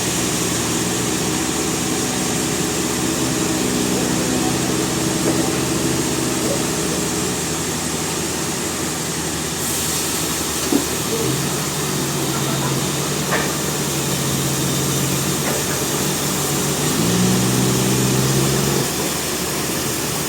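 Sawmill engine running steadily under a constant hiss. Its hum shifts pitch a few times, dropping about eleven seconds in and rising again about seventeen seconds in.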